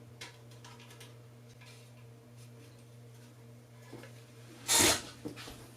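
Plastic handling noise as an action figure is worked onto the pegs of a 3D-printed display stand: faint clicks, then one louder brief knock or scrape nearly five seconds in followed by a couple of small clicks, over a steady low electrical hum.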